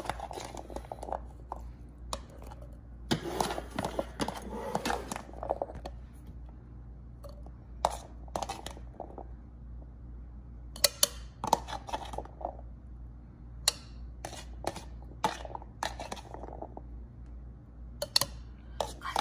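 A spoon scraping and clinking against plastic as pomegranate arils are scooped from a plastic container into a plastic personal-blender cup: scattered light clicks and knocks, with a longer stretch of scraping a few seconds in. A steady low hum runs underneath.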